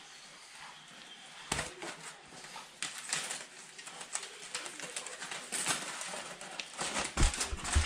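Masa dough being mixed by hand with lard in a bowl: irregular squishing, slapping and knocking.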